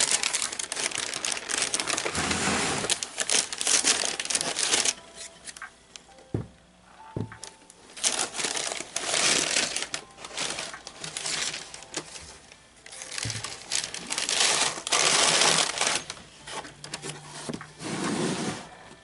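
A new pair of shoes being unboxed: the wrapping crinkles and rustles in several bursts of handling, with a few light knocks in between.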